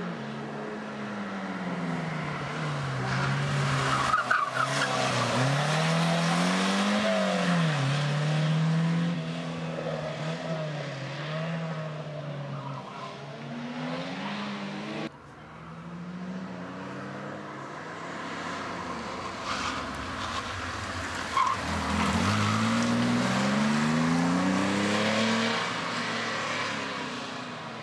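Historic rally car engines revving hard through a tight hairpin, the pitch rising and dropping with each throttle lift and gear change. After an abrupt cut about halfway, a second car comes through and accelerates up through the gears near the end.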